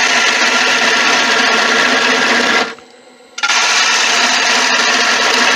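A bowl gouge cutting into a monkey puzzle bowl as it spins on a wood lathe: a loud, steady shaving noise. The cut stops for under a second about two and a half seconds in, then picks up again.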